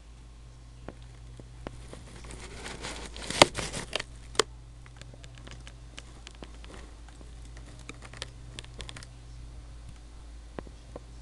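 A burst of crinkling, rustling noise starting about two seconds in and lasting about two seconds, over a steady low hum, with scattered sharp clicks before and after.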